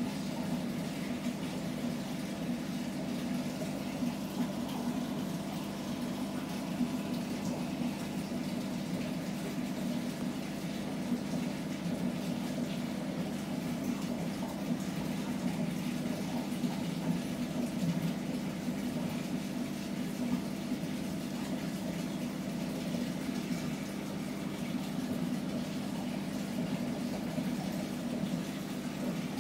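Aquarium filter pump running, a steady hum with water trickling and bubbling.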